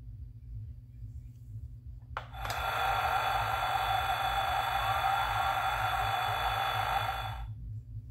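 Spin Master The Batman Batmobile toy playing its electronic sound effect through its small built-in speaker for about five seconds, starting just after a click about two seconds in.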